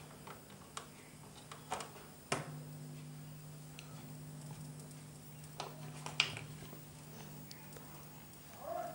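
Faint clicks and taps of a phone and small wired electronics being handled, with a low steady electrical hum that sets in with a click about two and a half seconds in. No song comes through: the music played over the Bluetooth module is not being heard.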